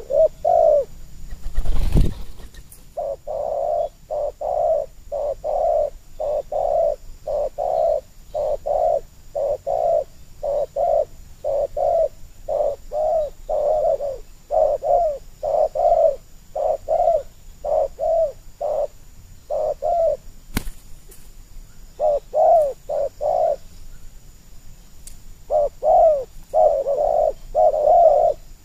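Spotted doves cooing: a long run of short coos, about two a second, that breaks off after some twenty seconds and resumes in shorter runs. There is a dull thump about two seconds in and a sharp click later.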